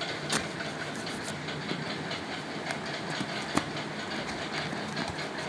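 Cardboard shipping box being handled and turned in the hands, with scattered small clicks and taps and two louder knocks, about half a second and three and a half seconds in, over a steady background noise.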